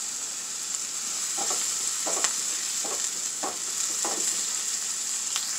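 Diced onion sizzling steadily in a frying pan while a slotted spoon stirs it, scraping across the pan about five times.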